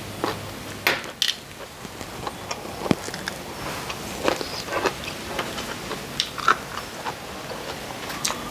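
Close-up crunching and chewing of raw round Thai eggplant, with irregular crisp crunches scattered throughout.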